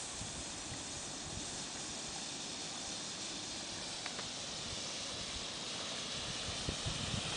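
Smoke bomb hissing steadily as it burns, jetting out smoke; the hiss grows a little louder near the end.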